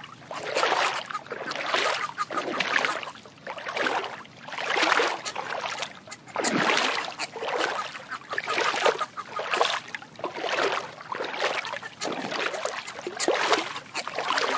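Water sloshing in regular surges, about one a second.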